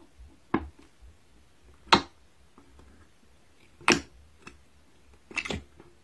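Pink slime in a jar being pressed with the fingers, giving sharp pops about every two seconds, the last a quick little cluster.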